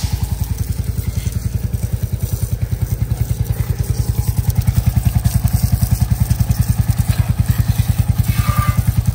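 Royal Enfield Hunter 350's 349 cc single-cylinder engine idling with a steady, evenly spaced low beat.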